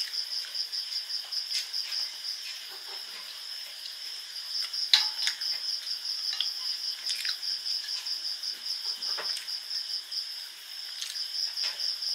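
Steady high-pitched insect chirping, pulsing about four times a second, with a few light clinks of a steel spoon on a steel plate, the loudest about five seconds in.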